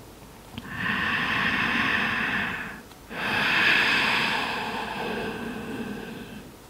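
A person's breathing during a seated yoga forward fold: two long audible breaths, the second longer and slowly fading.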